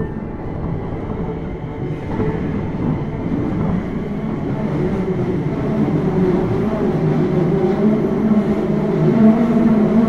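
Running sound inside a Keio Series 5000 motor car. The hum of its Hitachi IGBT-VVVF inverter and traction motors over the wheel and track rumble grows steadily louder as the train gathers speed, with the motor tones edging slightly upward.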